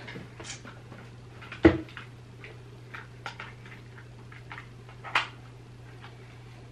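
Scattered small clicks and knocks of a charger plug and cable being fumbled with while trying to plug it in, with a louder knock about a second and a half in and another about five seconds in, over a faint steady hum.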